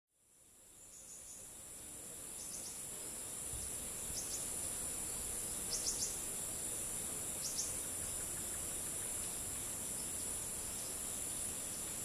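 Tropical forest morning ambience: a steady, high-pitched drone from a chorus of crickets and cicadas, with short high bird chirps in clusters of two or three every second or two, over a light wind. The sound fades in at the start.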